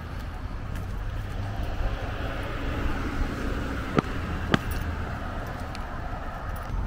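Street traffic noise with a steady low rumble. Two sharp clicks about half a second apart come a little past the middle.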